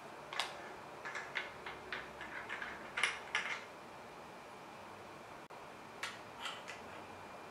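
Faint handling noise of an aluminium monopod and its parts: a scatter of short clicks, knocks and plastic-bag crinkles, bunched in the first few seconds and again a couple of times near the end.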